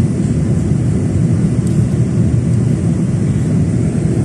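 Jet airliner cabin noise in flight: a steady, low rush of engines and airflow heard from a window seat.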